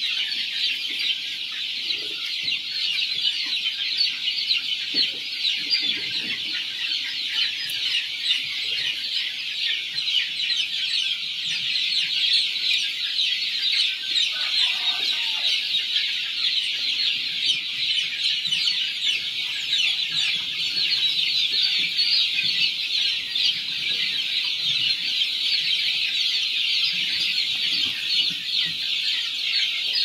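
A brood of many chicks peeping at once, a dense, unbroken high-pitched chorus of short cheeps.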